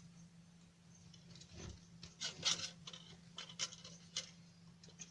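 Faint scattered taps, scrapes and rubs of hands and tools handling a circuit board on a workbench, over a steady low hum.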